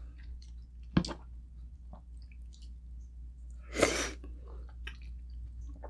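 Quiet eating sounds while tasting pork sinigang soup: a single sharp click about a second in, then a short breathy mouth sound a little before four seconds, over a steady low hum.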